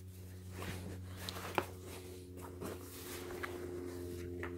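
Faint rustling of cotton-polyester camo trousers being handled, with a few soft ticks and one small click about one and a half seconds in, over a steady low hum.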